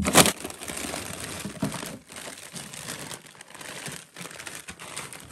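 Plastic-wrapped frozen food packages crinkling and rustling as a hand rummages through a freezer drawer and pulls them out, with a sharp knock right at the start.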